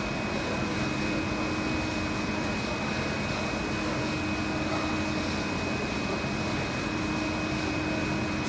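Yotta flatbed UV printer running while printing on TPU film: a steady machine whir with a constant high-pitched whine and a lower hum.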